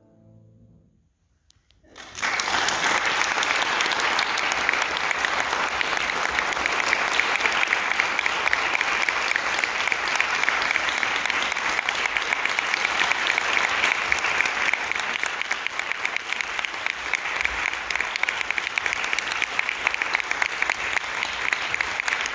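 The last chord of a grand piano dies away, then about two seconds in an audience suddenly starts clapping and keeps up steady applause.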